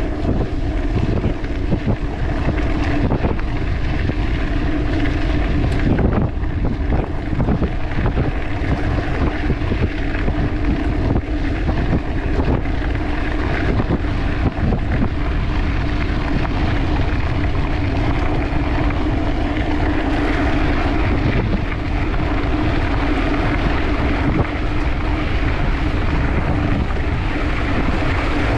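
Wind buffeting an action camera's microphone over the rolling noise and rattle of a mountain bike ridden over rough, sandy forest trail, with a steady low hum and scattered knocks from the bike.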